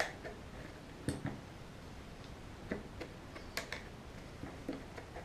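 Light, scattered clicks and taps of the plastic parts of a Volvo S40 power antenna mechanism being handled as its greased cable drum is seated in the motor housing. The sharpest click comes about three and a half seconds in.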